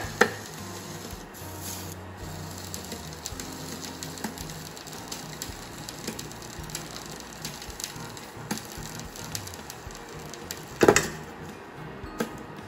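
Cookware being handled at the stove: scattered small clicks and one louder knock about eleven seconds in, over a faint low hum.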